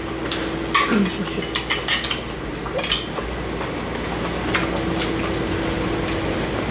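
Spoons, chopsticks and bowls clinking and scraping at a shared hot pot table, in scattered short clicks, most of them in the first half, over a faint steady hum.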